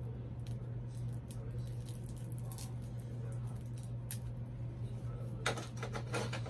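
Small clicks and rustles of a plastic fashion doll and its packaging being handled, with a quicker run of clicks about five and a half seconds in, over a steady low hum.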